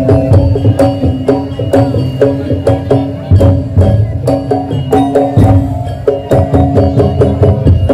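Madurese daul percussion ensemble playing loudly: deep drums under a fast run of pitched percussion notes, with sharp knocks throughout.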